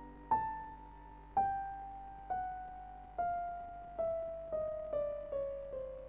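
Background music: a slow piano melody of single notes stepping downward in pitch, each note struck and left to die away, coming a little faster near the end.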